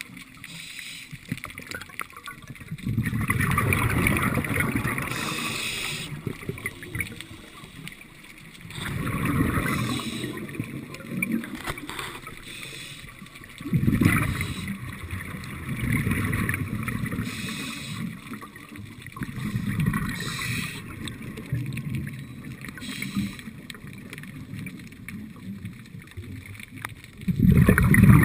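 A scuba diver breathing out through a regulator underwater: a burst of bubbling every few seconds, with quieter water noise between the exhalations.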